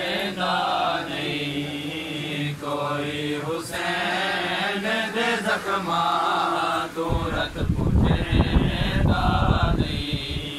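A group of men chanting a lament for Hussain together in long, held phrases. In the second half, a run of heavy, irregular low thuds comes through under the voices.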